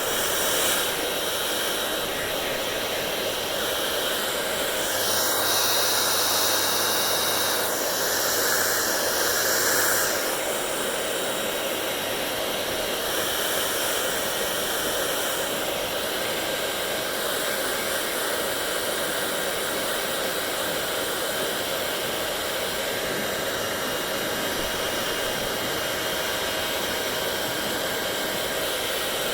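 Hair dryer blowing steadily, with a rushing hiss that grows a little louder and brighter for a few seconds near the start, then settles.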